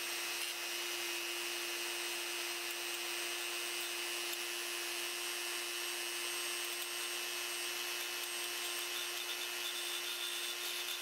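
Dremel rotary tool running at a steady speed, its bit scraping away the stuck remains of a broken plastic odometer drive gear on its metal drive pin.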